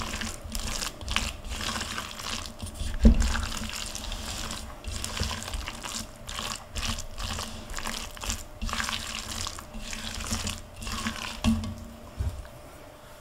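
Moist salmon patty mixture being stirred and mashed with a spatula in a plastic bowl: irregular wet squelching strokes with the spatula scraping the bowl. A dull thump about three seconds in is the loudest sound, with two smaller ones near the end.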